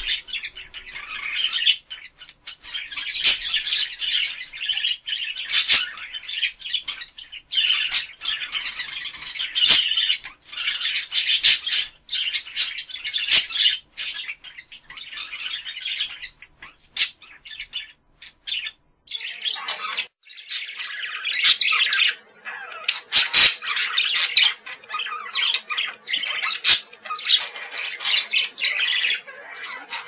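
Budgerigar warbling chatter: a rapid, unbroken stream of chirps, squawks and sharp clicks. It pauses briefly about two-thirds of the way through, then resumes over a faint steady hum.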